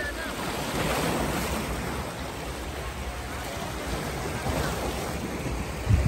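Sea waves washing in, rising and falling in swells, with wind rumbling on the microphone.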